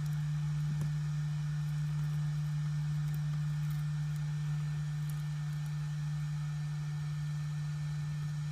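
Heat gun running: a steady low hum with a faint hiss of air.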